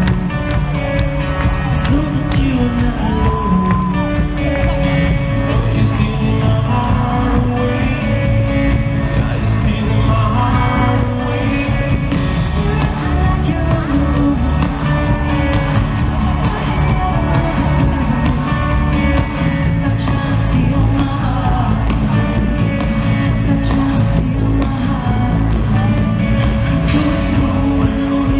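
Live pop concert music at a loud, even level: an amplified band playing with a lead vocal singing over it.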